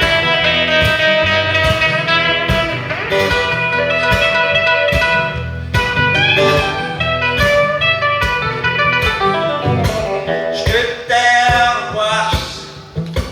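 Live blues band playing an instrumental break led by guitar over a steady beat, the music dropping in loudness near the end.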